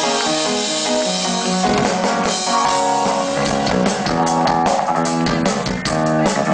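Live rock band playing: sustained chords, with drum kit hits coming in about two seconds in and getting busier later on.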